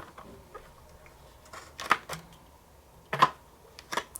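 Plastic parts of a small ultrasonic humidifier knocking and clicking as its water tank and base are handled, four short knocks with the loudest about two and three seconds in.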